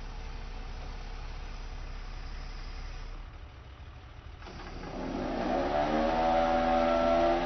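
Auto crane truck's engine idling with a steady low hum, then dropping briefly before it speeds up about four and a half seconds in: a rising whine that levels off into a louder, steady multi-tone drone.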